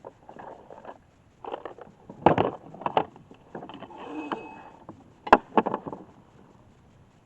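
Irregular knocks, rattles and scrapes of gear being handled in a small boat, with a sharp single knock about five seconds in.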